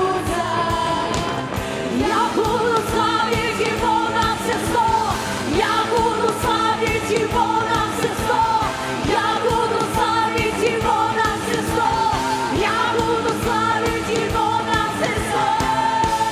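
Live worship band playing an upbeat song, with female singers singing in Russian over drums and band on a steady beat.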